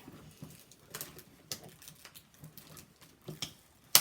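Irregular light clicks and taps of small objects and containers being handled on a tabletop, with a sharper knock just before the end.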